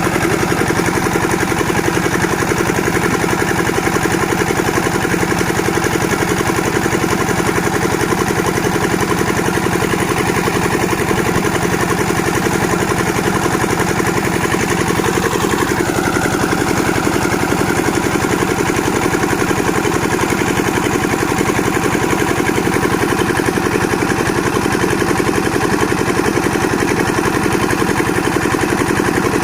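Engine-driven plank-making machine running steadily at an even pace, with a brief change in tone about halfway through.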